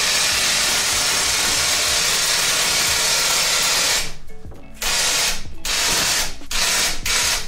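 12-volt electric winch (a 3,500-pound Harbor Freight unit) running under load as it hoists the camper, a steady motor and gear noise for about four seconds, then switched on and off in short bursts for the rest.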